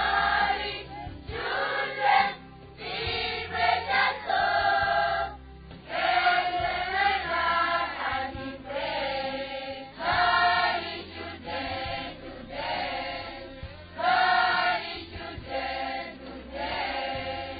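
A group of children singing together as a choir, in short phrases with brief breaks between them.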